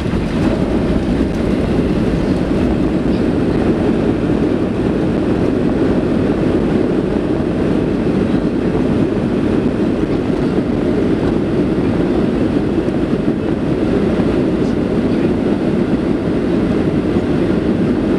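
Cabin noise of a Boeing 737-700 rolling out after touchdown, heard from a window seat over the wing: a loud, steady roar of its CFM56 engines and rumble of the wheels on the runway, with the spoilers up as it decelerates.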